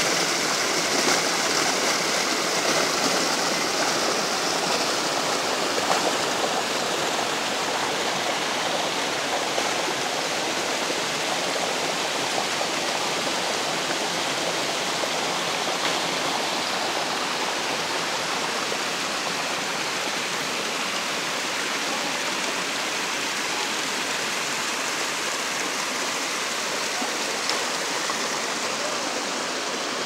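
Spring-fed cascade and stream rushing and splashing over rocks: a steady, dense water noise that grows a little quieter over the first several seconds, then holds even.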